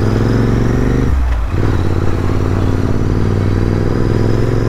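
Royal Enfield Interceptor 650's parallel-twin engine running as the motorcycle rides along. About a second in, the engine note briefly drops away, then picks up again.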